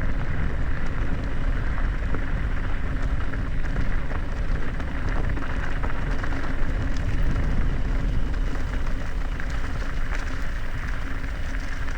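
Mountain bike descending a rocky dirt trail at speed: steady wind rush on the action camera's microphone mixed with the crackle and rattle of knobby tyres over gravel and rocks.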